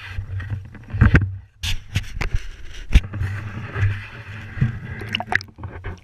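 Water splashing and sloshing as hands hold a bass in the shallows, with irregular knocks and a low rumble from a GoPro dipping in and out of the water.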